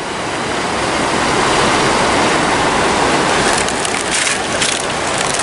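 Fast river water rushing over rocks in rapids, a steady loud rush, with a few short scratchy sounds from about three and a half to five seconds in.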